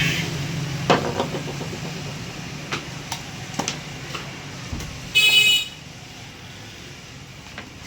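A short vehicle horn honk about five seconds in, the loudest sound here. Around it come a few sharp metallic clicks and knocks, over a low steady hum that fades.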